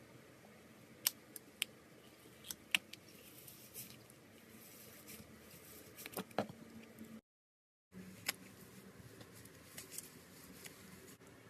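A slime-filled stress ball being cut: sharp snipping clicks come at irregular intervals, with soft squishing in between. Just past the middle the sound cuts out completely for under a second.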